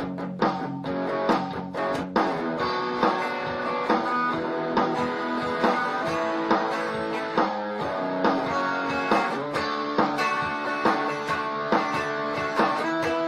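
A Les Paul-style electric guitar played with a clean tone through an amplifier: chords strummed a little under once a second, the notes ringing on between strokes.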